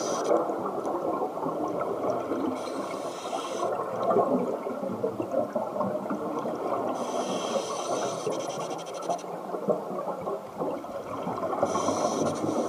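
Scuba diving underwater: breathing through a regulator, with a high hiss about every four to five seconds over a steady crackling, bubbling underwater background.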